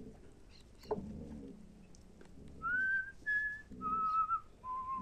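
A person whistling a short tune of four clear notes, starting about halfway through, the pitch stepping up and then down, with the last note held long.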